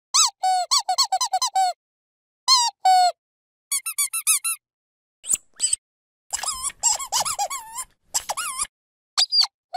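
Dog squeaky toy being squeezed, giving short squeaks that mostly drop in pitch. They come in quick runs of several at a time, with brief gaps between the runs.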